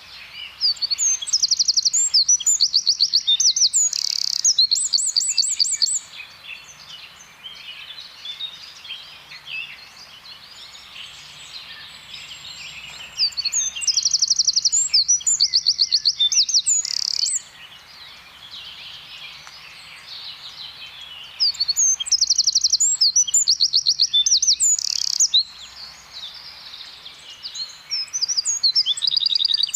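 Eurasian wren singing: loud bouts of very rapid trills and sharp high notes, each about four seconds long, coming four times with pauses of several seconds between. Fainter chirps fill the gaps.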